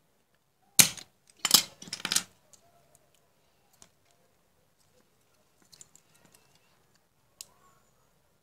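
Spring-loaded desoldering pump firing with a loud snap about a second in, followed by a second burst of clacks over the next second as the tool is worked. A few faint clicks of the tools and the freed relay being handled follow.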